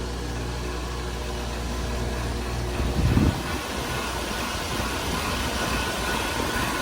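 Ruud Achiever heat pump outdoor unit running in heat mode just after starting up: steady hum of its scroll compressor, which sits under a sound cover, with the outdoor fan. A brief low thump about three seconds in.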